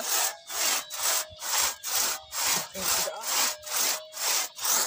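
Hand saw cutting through wood in steady back-and-forth strokes, about two strokes a second.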